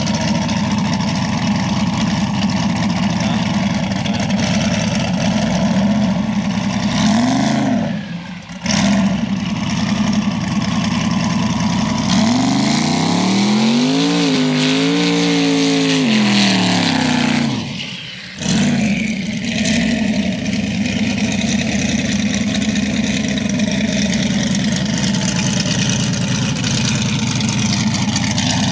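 A vehicle engine running steadily under broad road noise. Its pitch climbs, holds and falls back through the middle stretch. The sound drops out briefly twice.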